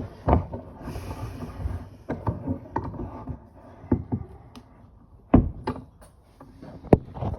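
Irregular knocks, clicks and short scrapes of things being handled and set down, with a brief rasp about a second in. The loudest knocks come a little past five seconds and again near the end.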